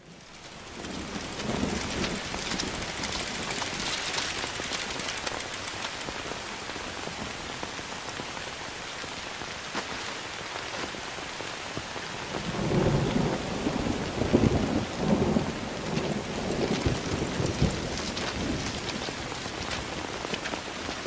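Steady heavy rain falling on the ground, fading in at the start, with a low rumbling that swells and falls several times from about twelve seconds in.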